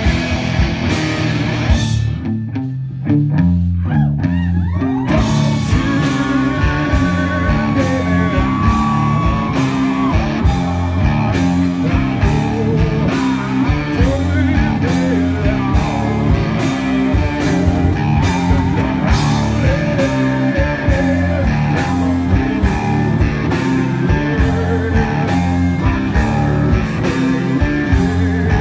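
Live rock band playing at full volume: electric guitar, violin and a steady drum beat, with a male voice singing. About two seconds in the cymbals drop out for a few seconds, then a long high note is held.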